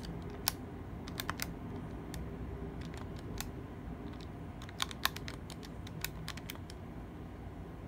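Buttons of a Casio fx-82ES PLUS scientific calculator being pressed: irregular sharp plastic clicks, often two or three close together, thinning out near the end, over a steady low background noise.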